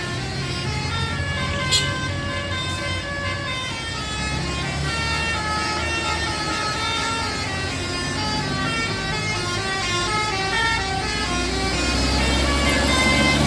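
Bus basuri (telolet) musical air horn playing a quick melody of stepping tones over a low engine rumble, with a brief sharp click about two seconds in.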